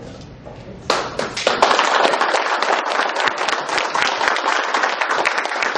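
A small group of people clapping, starting suddenly about a second in and going on steadily.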